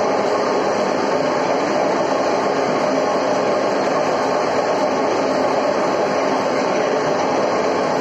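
Electric wire rope hoist running: a steady mechanical rumble from its motor, gearbox and rope drum, unchanging throughout.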